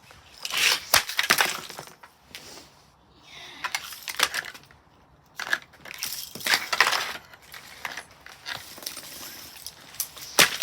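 Blaupunkt fan heater's casing being smashed: bursts of cracking, clattering impacts and rattling loose parts, about a second in, again around the middle to two-thirds of the way through, and one sharp hit near the end.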